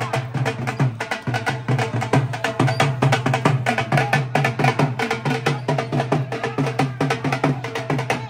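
Dhol drums beaten with sticks in a rapid, even rhythm of sharp strokes.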